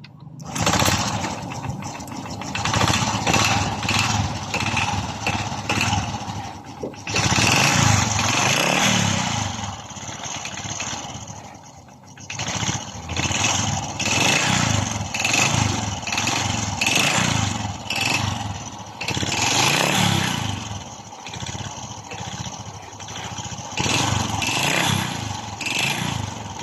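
Single-cylinder four-stroke engine of a Honda RS125 Fi motorcycle running after a rebuild for piston slap, revved up and dropping back repeatedly every few seconds.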